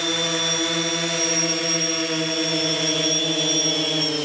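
DJI Phantom 3 quadcopter's motors and propellers running in a steady whine as it hovers low and sets down. Near the end the pitch sags and then starts to fall as the motors spin down after touchdown.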